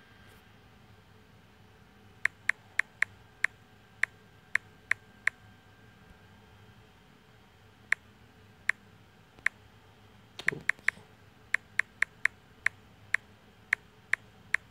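Key-press clicks from a tablet's touchscreen keyboard as text is typed: about two dozen short, sharp clicks in quick runs, with a pause of a couple of seconds in the middle. A brief soft rustle comes about ten and a half seconds in.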